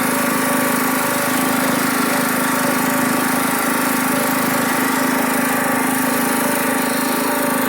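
Riding lawn mower engine running steadily, a constant even drone.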